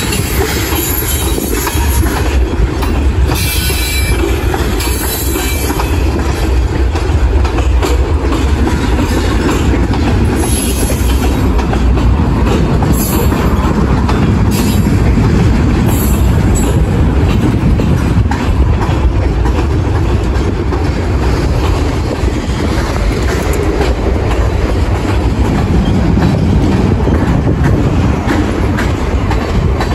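Freight train of tank cars and covered hopper cars rolling past: steady rumble of steel wheels on rail with fast clicking over the rail joints. A few brief high squeals from the wheels come in the first half.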